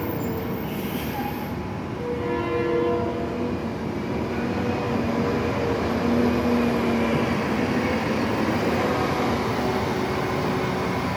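Gillig low-floor transit bus pulling away close past, its engine running with a steady drone and faint whining tones that come and go.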